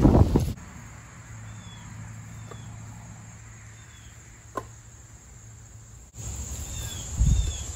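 Split firewood being handled and set onto a stack: a sharp knock about halfway and a dull low thump near the end, over faint, short, high falling chirps from outdoor insects or birds.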